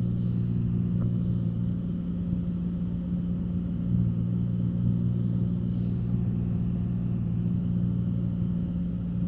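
Cessna 182's piston engine and propeller droning steadily in the cabin, a constant low hum with no change in pitch.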